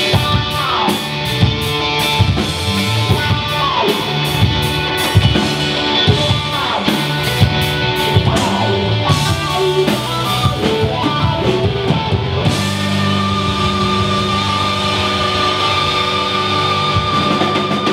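Live rock band playing an instrumental passage on two electric guitars, bass guitar and drum kit, with guitar slides over a steady drum beat. About twelve seconds in the drums fall away and the guitars and bass hold long sustained notes, the drums coming back in near the end.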